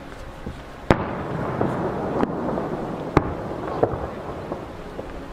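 Aerial firework shells bursting at a distance: a sharp bang about a second in, then a rolling noise with several more bangs, the loudest about three seconds in.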